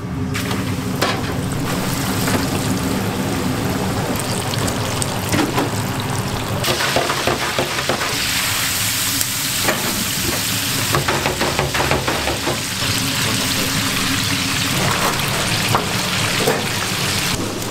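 Battered chicken deep-frying in hot oil in a commercial fryer: a steady sizzle dotted with small pops and crackles, growing louder and brighter about a third of the way in. A low steady hum runs underneath.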